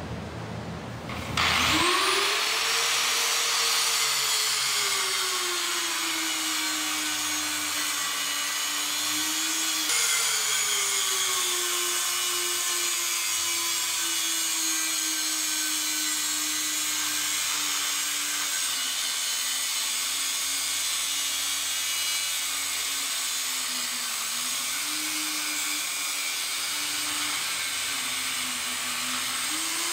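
Parkside angle grinder spinning up about a second and a half in, then cutting through a metal pipe with its disc. The motor's whine sags and wavers as the disc is pressed into the metal, and briefly rises again near the end.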